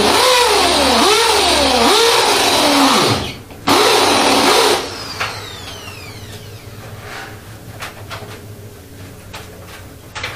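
Corded electric drill boring into the wall, its motor pitch rising and falling under load about every 0.7 s. It stops briefly about three seconds in, runs again for about a second, then winds down, followed by light clicks and taps.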